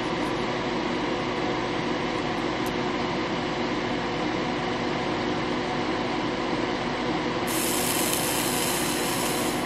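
Steady mechanical whir like a fan running, with a low hum of a few held tones; about three quarters of the way in a brighter hiss joins it.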